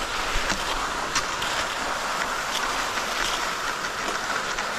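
Cross-country skis gliding through groomed classic tracks in snow: a steady scraping hiss with faint clicks now and then.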